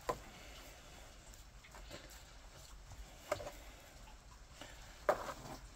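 Three soft, brief knocks and rustles, one at the very start, one a little past halfway and one near the end, as a part-skinned squirrel carcass is turned and worked with hands and a knife on a plastic cutting board.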